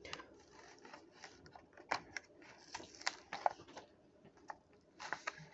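Faint, irregular clicks and brief rustles of a Hot Wheels car's plastic blister card being handled and turned over in the hands.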